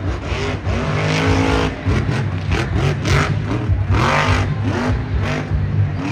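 Grave Digger monster truck's supercharged V8 revving hard, its pitch rising and falling several times as the truck accelerates across the dirt and launches off a jump.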